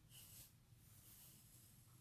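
Faint scratch of a pencil stroke on paper in the first half-second, then near silence with a low steady hum.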